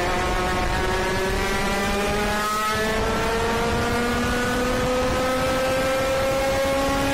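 IAME KA100 100cc two-stroke kart engine held at full throttle, its pitch climbing slowly and steadily as the kart accelerates. A second engine's lower, steadier note runs alongside.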